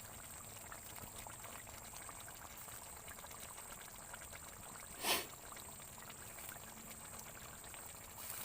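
Water bubbling steadily in a cooking pot as eggs boil, a fine continuous crackle of small bubbles, with one short louder sound about five seconds in.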